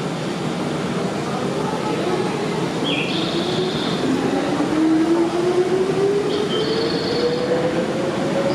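Electric train running, heard from inside the carriage, with a motor whine rising steadily in pitch from about four seconds in as it gathers speed. Short high-pitched squeals come twice.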